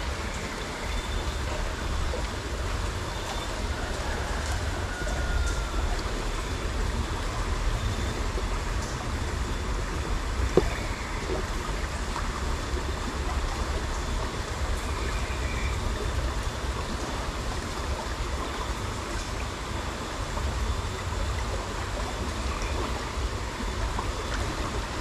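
Small rocky river flowing steadily over stones, with a low rumble underneath. A single sharp click sounds about ten seconds in.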